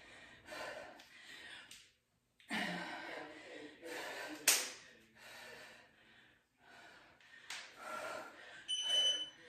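Hard breathing during kettlebell swings and lunges, a puff about once a second, with one sharp click about four and a half seconds in. Near the end an interval timer gives a short high electronic beep as the set runs out.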